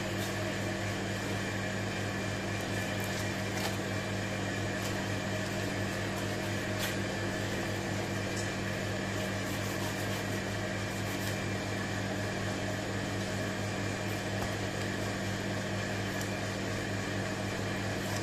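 Steady mechanical hum from running machinery, with a few faint clicks as a long knife slides along a flatfish's bones while it is being filleted.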